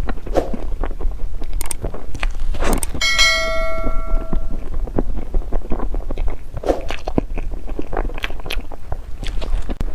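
Close-miked crunching and chewing of crunchy dessert, in irregular crisp crackles. About three seconds in, a single bright ringing ping sounds and dies away over about a second and a half.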